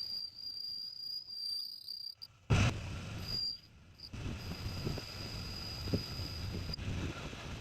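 Metal lathe machining a forged steel dumbbell weight, running with a low rumble and a steady high-pitched whine. The whine breaks off twice, and there is a loud clank about two and a half seconds in.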